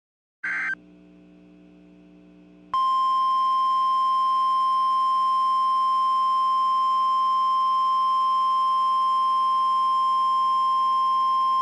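NOAA Weather Radio warning alarm tone, a single steady 1050 Hz beep held without a break for about nine seconds from nearly three seconds in, sent as a routine test of the alarm. A short burst of noise and a faint hum from the radio come before it.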